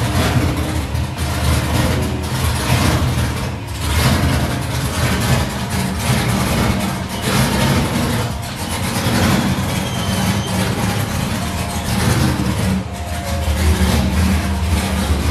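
Cammed 5.7-litre LS1 V8 with a Holley Hi-Ram intake, in a Mazda RX-8, running at idle as the car creeps forward. Its level swells every few seconds with light throttle.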